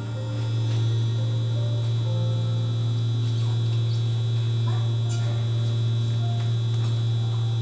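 A loud, steady, low electrical mains hum with a fainter high steady whine above it, unbroken throughout.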